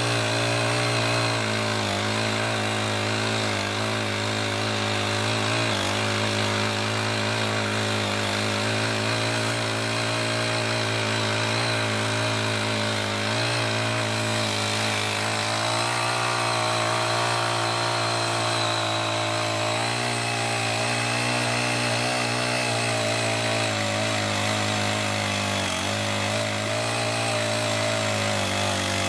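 Honda GX35 four-stroke single-cylinder engine of a mini garden tiller running steadily at high speed. Its pitch wavers slightly and dips briefly near the end.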